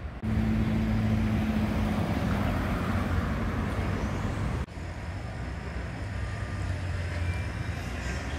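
Urban road traffic: a car drives by with a steady engine hum and tyre noise. About four and a half seconds in, the sound cuts abruptly to a quieter, steady traffic hum.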